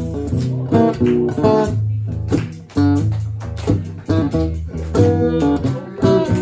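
Acoustic guitar strummed steadily, a run of chords with ringing low notes, as an instrumental passage after the last sung line.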